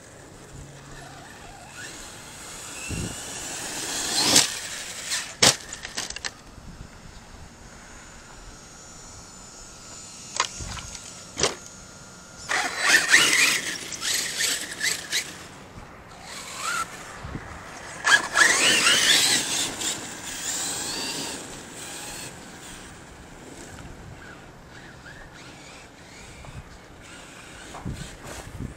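Arrma Kraton 6S brushless RC truck being driven in bursts: the electric motor whines up in rising pitch as it accelerates, over the gritty noise of its tyres on dirt, twice for a few seconds each. A few sharp knocks come in the first several seconds.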